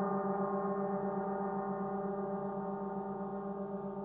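A 30-inch (75 cm) earth gong sings a sustained, humming drone with many steady overtones over a strong low tone, worked by a flumi friction mallet rubbed over its face. There are no strikes, and the drone fades slightly.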